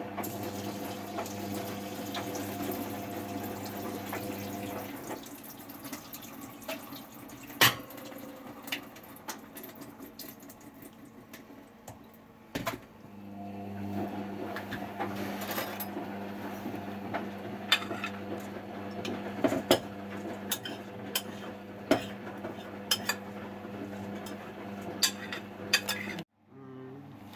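Soaked sesame seeds and their soaking water are tipped from a bowl into a metal sieve in a stainless-steel sink, with a spoon clinking and scraping against the bowl and sieve in many sharp knocks. A steady hum runs underneath and drops out for several seconds in the middle.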